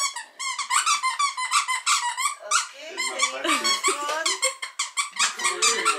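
Squeaky dog toy squeezed over and over, giving short, high-pitched squeaks about three or four times a second.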